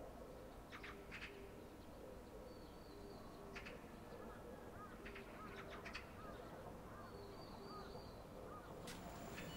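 Faint outdoor ambience with scattered short bird calls and chirps throughout.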